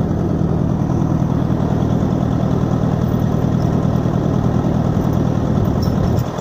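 Allis-Chalmers D17's four-cylinder gasoline engine idling steadily.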